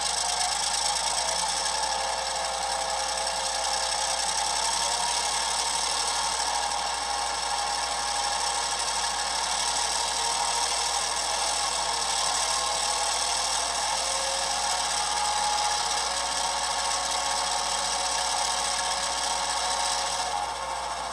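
An HO scale MP15 switcher model's DCC sound decoder plays a diesel engine idling steadily through a tiny onboard speaker. The sound is thin, with almost no bass.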